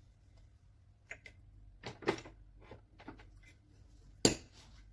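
Metal parts of a dismantled electric polisher being handled on a workbench: a few light clicks about a second in, a louder clatter around two seconds in, and one sharp knock a little after four seconds.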